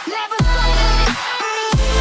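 Background electronic music with heavy bass and falling pitch sweeps.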